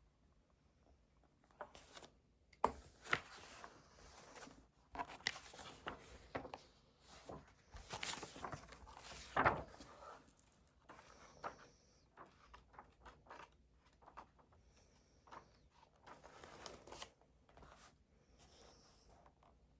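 Irregular rustling, clicks and light knocks of things being handled on a desk, such as paper and small objects, with two sharper knocks about 3 s and 9 s in, easing off near the end.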